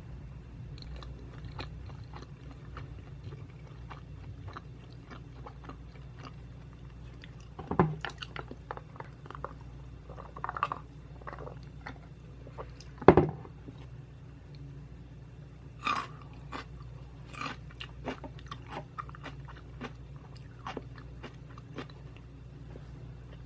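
Close-miked chewing of butter jangjorim bibimbap: a steady run of wet mouth clicks and smacks, with a few louder bites or knocks about 8, 10 and 16 seconds in and the loudest about 13 seconds in.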